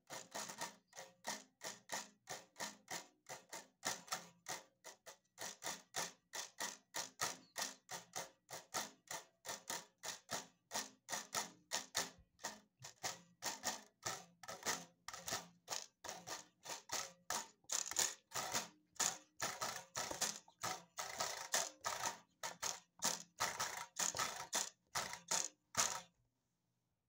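Electric guitar strings strummed in quick, even strokes, about three or four a second, each a short sharp strike; the strumming stops about a second before the end.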